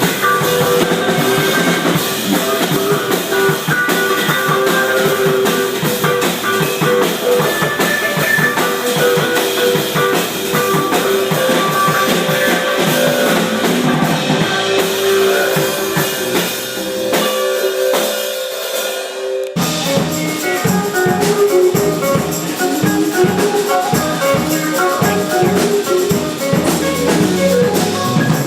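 Live band playing an instrumental passage, guitar over a drum kit. Past the middle the bass and drums drop away for a couple of seconds, then the full band comes back in abruptly.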